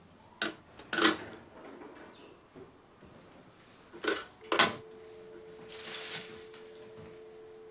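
A landline telephone handset is set down on its cradle with two plastic clacks. About three seconds later come two more clicks, followed by a steady low hum.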